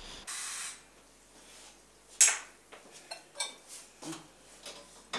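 Small porcelain coffee cups and saucers clinking on a metal serving tray: one sharp clink about two seconds in, then several lighter ones.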